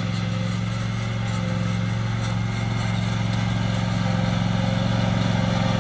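Small petrol engine running at a steady speed, its note unchanging throughout.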